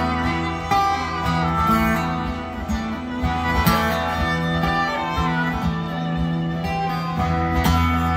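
Live band music without singing: strummed guitar chords with a held melody line over steady bass notes, a few strong strums standing out.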